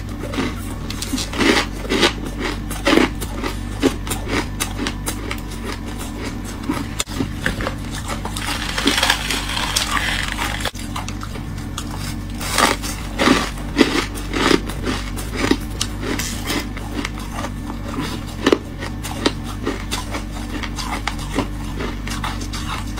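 Freezer frost crunching as it is bitten and chewed: an irregular run of sharp, crisp crunches, with a denser stretch of grinding crunch about nine seconds in, over a steady low hum.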